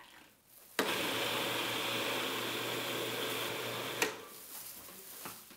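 Electric food processor running for about three seconds, mixing a moist coconut macaroon dough; it starts abruptly about a second in and stops with a click.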